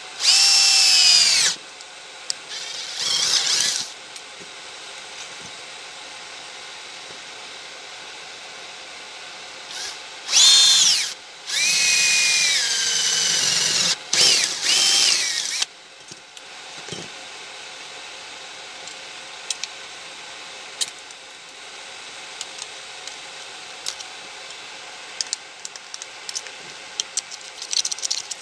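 Cordless drill drilling through a thin metal plate in five short bursts, its motor whine rising as it spins up and falling as it stops. These are followed by light clicks and taps of the metal part being handled.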